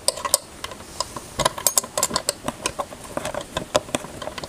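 Irregular small clicks and clinks of a metal bulb bracket being worked by hand into the bulb socket of a plastic car headlight housing.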